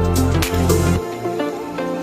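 Background music: a heavy bass line with a beat, which drops out about halfway, leaving a lighter melody.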